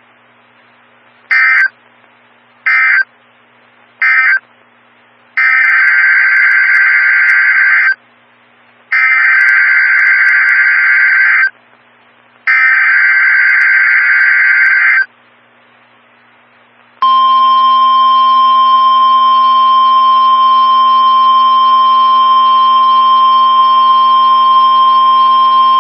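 Emergency Alert System data bursts: three short screeching bursts of digital SAME code, the end-of-message signal, then three longer bursts carrying the header of the next alert. About seventeen seconds in, the NOAA Weather Radio warning alarm tone begins, a single loud, steady tone held for about nine seconds.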